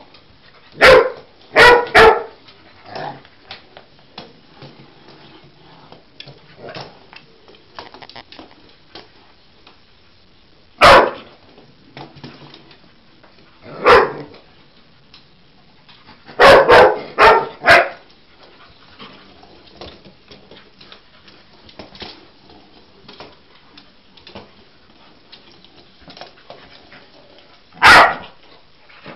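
A dog barking in short, sharp barks that come in clusters: three near the start, single barks about a third and halfway through, a quick run of four a little past the middle, and one more near the end.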